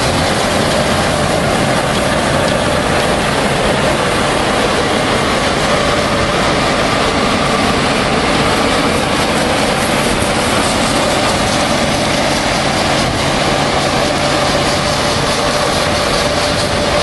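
Claas Lexion 580 Terra Trac combine harvester running steadily while cutting oats: a loud, even mix of engine and threshing and chopping machinery, with a constant high hum running through it.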